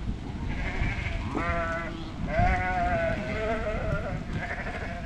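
Mob of ewes bleating: a short bleat about a second and a half in, then a longer, wavering bleat, with fainter calls around them, over a steady low rumble.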